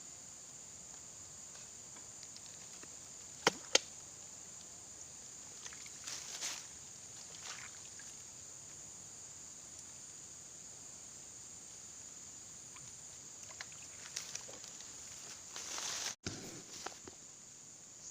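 Steady high-pitched chorus of crickets and other insects, with two sharp clicks about three and a half seconds in and a few brief rustling handling noises later on.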